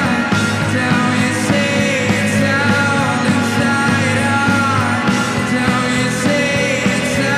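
Rock band playing a song live, dense and steady, over a held bass note that changes about a third of a second in and again around five seconds in.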